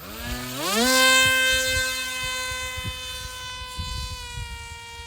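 The electric motor of a radio-controlled Su-57 model plane throttling up to a high whine within the first second, then holding steady and easing off slightly about four seconds in.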